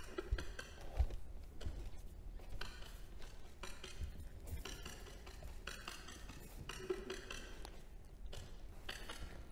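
Quiet, sparse percussive music: scattered wood-block-like knocks and clinks with a brief pitched note near the end. Under it are a few soft low thuds of bare feet moving on a stage floor.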